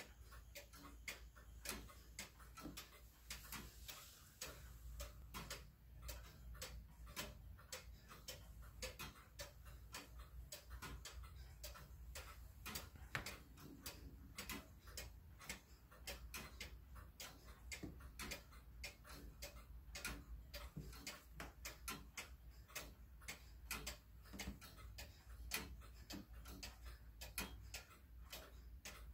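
Faint, steady ticking of the clockwork movement of an 1862 Black Forest carillon tall case clock, as its escapement beats with the pendulum swinging; no bells are playing.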